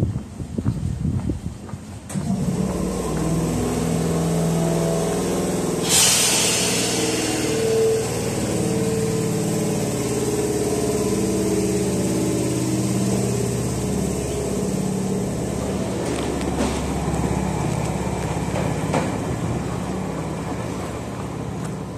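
Chichibu Railway electric train pulling away from the platform, its traction motors humming in stepped tones as it gathers speed, with a short hiss about six seconds in.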